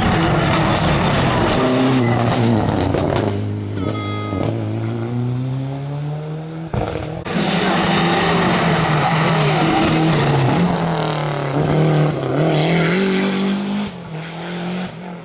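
Rally car engines revving hard, the pitch falling as they lift off and rising again as they accelerate through the gears. There is an abrupt break about seven seconds in, after which a second car is heard.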